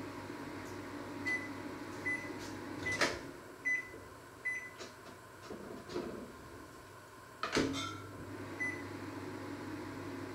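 Kitchen sounds with a steady appliance hum, about six short high beeps, and two louder clunks about four and a half seconds apart, like a cupboard or appliance door being opened and shut. The hum fades between the clunks and returns after the second.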